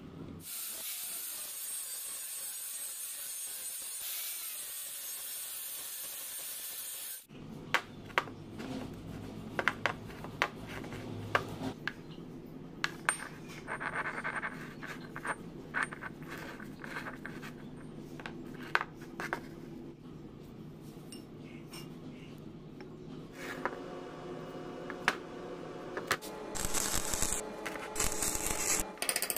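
Metal parts and hand tools clinking and knocking on a workbench: many short, sharp taps at irregular intervals, busier near the end. The first seven seconds hold a steady high-pitched hiss instead, which stops abruptly.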